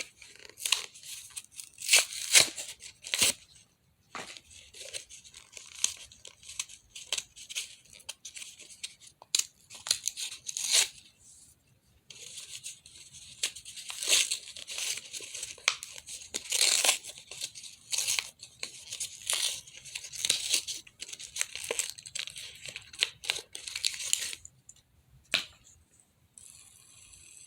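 Plastic fidget toy being worked by hand: stretches of crinkly, rasping noise mixed with clicks, pausing briefly about four seconds in and again about eleven seconds in, then stopping near the end.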